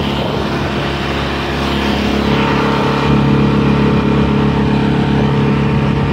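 Outboard motor running steadily at speed, driving a small boat, a steady engine drone that builds a little over the first few seconds, over the rush of water from the boat's wake.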